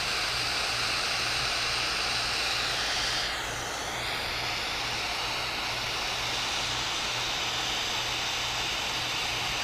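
Large propane torch burning with a steady roar as it heats a copper pipe joint on a radiator for soldering; the roar dips briefly about three seconds in.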